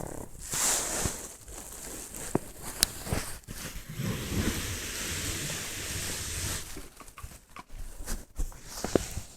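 Pug snoring and snuffling through its short nose, the noisy breaths coming irregularly, with one long rasping breath about three and a half seconds in that lasts some three seconds.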